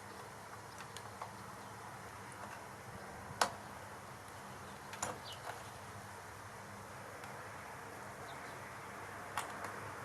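Three sharp clicks, the loudest about a third of the way in, over a faint steady electrical hum and hiss.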